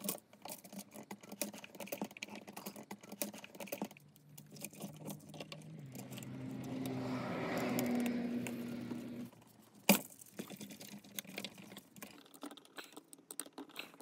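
Light clicks, taps and rattles of a screwdriver turning the terminal screws on a GFCI outlet while the outlet and its wires are handled. Midway a low hum swells for a few seconds and cuts off abruptly, then comes one sharper click.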